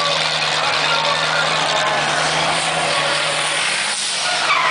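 Car engines running, a steady low engine note under a dense hiss of engine and exhaust noise. Near the end a high squeal starts and slides down in pitch.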